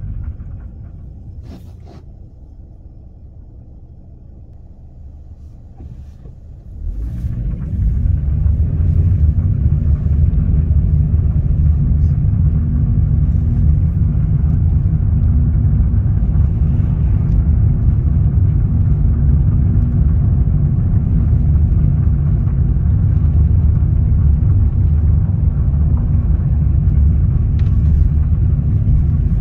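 Car engine and road rumble heard inside the cabin while driving. It is quieter for the first several seconds, then jumps up about seven seconds in and runs steady and loud.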